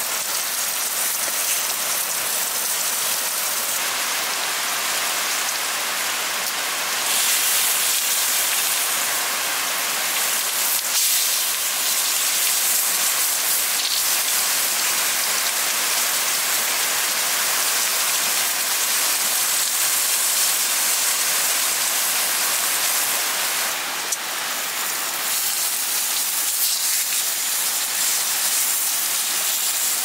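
Steady rain falling, an even hiss of drops.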